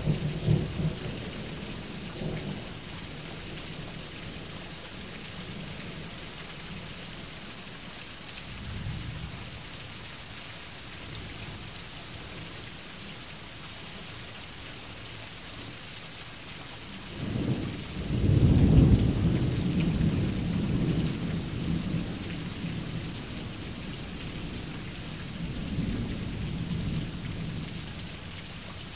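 Steady rain with rolling thunder. The loudest roll builds about two-thirds of the way in and rumbles on for several seconds, with weaker rumbles at the start and near the end.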